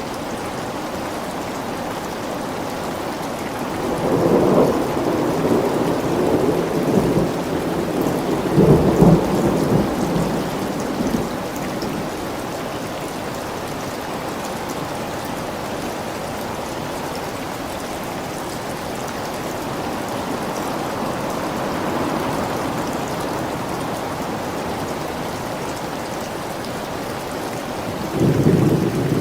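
Thunderstorm: steady rain falling, with rolling thunder swelling about four seconds in, again around nine seconds, and once more near the end.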